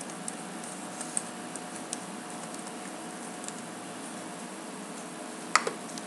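Computer keyboard keystrokes, a few scattered clicks in the first two seconds and a louder click near the end, over a steady hum and hiss.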